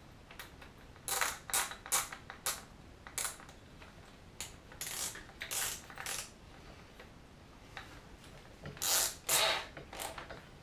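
Short clicks and rattles of a power drill being handled and readied for drilling, coming in several small clusters.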